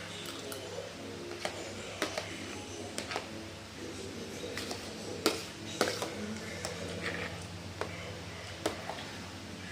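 Mukbang eating sounds: a spoon clicking against a plate at irregular intervals while rice is eaten, the sharpest click about five seconds in, over a steady low hum.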